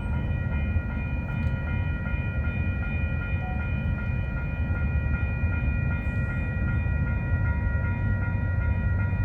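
Approaching freight train: the low rumble of its diesel locomotives, with several steady high-pitched ringing tones over it.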